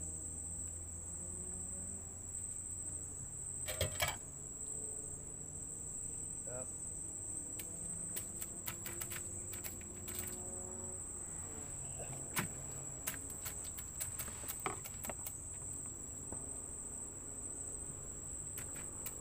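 Steady high-pitched trill of an insect chorus, with scattered sharp clicks and knocks, a cluster of them about four seconds in and more in the middle of the stretch.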